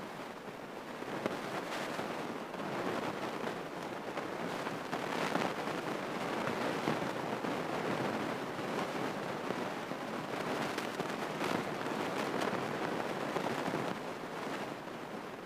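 Cabin noise of a small single-engine training airplane on final approach: a steady rush of engine and airflow, dotted with frequent crackles.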